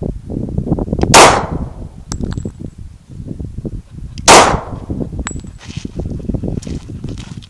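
Two very loud pistol shots about three seconds apart from a Glock 27 firing .40 S&W 180-grain Golden Saber rounds, each a sharp crack with a short ringing tail.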